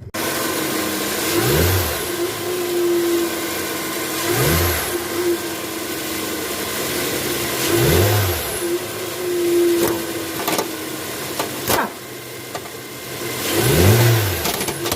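Car engine running, revved in four short blips that rise and fall back. A steady whine runs under it and does not change pitch with the revs. There is one sharp click near the end.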